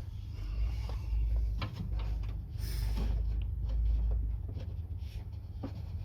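Scattered light clicks and knocks from hands and tools working inside a car door, over a low rumble that fades out a little past the middle.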